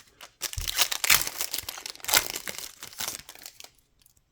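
A plastic trading-card pack wrapper being torn open and crinkled by hand, a dense crackling rustle that starts about half a second in and dies away near the end.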